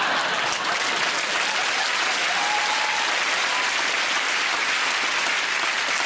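Studio audience applauding, a dense steady clapping at a level as loud as the surrounding speech.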